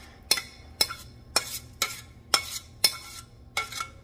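Metal spoon scraping thick, saucy macaroni and cheese out of a tilted pot into a glass pie dish, clinking sharply against the cookware about twice a second.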